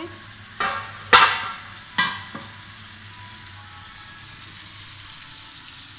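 Stainless steel lid clanking against a frying pan three times, each knock ringing briefly, the second the loudest, over a steady sizzle of chicken frying in the pan.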